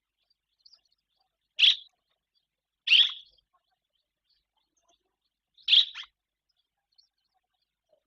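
Barn swallow calling: three short chirps spaced a second or more apart, the last a quick double note.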